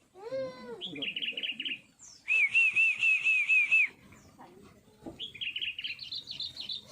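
Bulbuls calling in quick chattering runs of high chirps, with the loudest a string of about eight even notes from about two to four seconds in, the sound of a bulbul-trapping session using lure calls. It opens with a shorter, lower call that rises and then falls.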